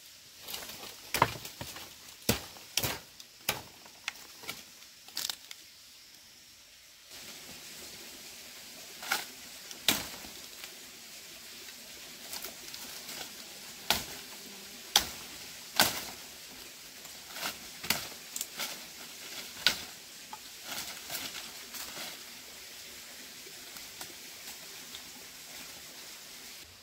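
Machete chopping at bamboo and woody branches: sharp, irregular strikes, some in quick pairs, a few seconds apart.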